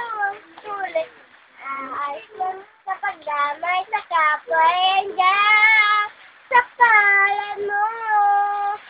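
A child singing solo with no accompaniment, in short phrases, then holding long high notes with vibrato in the second half.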